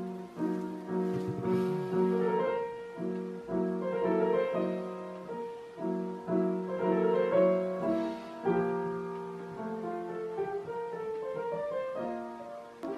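Background music: a piano melody played note by note.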